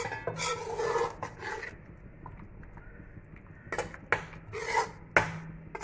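Metal spoon stirring chicken in masala in an aluminium pot, scraping and knocking against the pot, with a few sharp scrapes about four to five seconds in. A faint steady low hum runs underneath.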